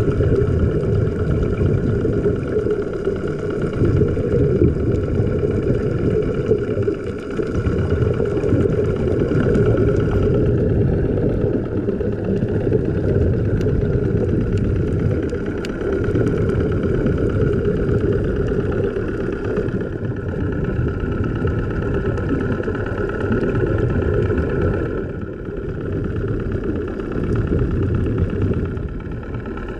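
An engine running steadily: a continuous drone that swells and eases a little in level without stopping.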